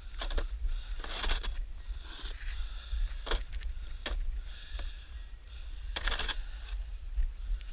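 Snow crunching and scraping in short bursts about once a second, from snow being shovelled or trodden, over a steady low rumble.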